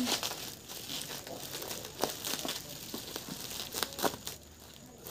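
Plastic bubble wrap crinkling and rustling as it is cut and pulled away from a cardboard box, with a few sharper clicks, the strongest about two seconds in and about four seconds in.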